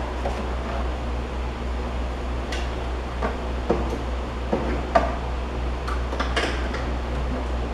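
Scattered light metallic clinks and knocks of hands and tools working on parts in a car's engine bay, over a steady low hum.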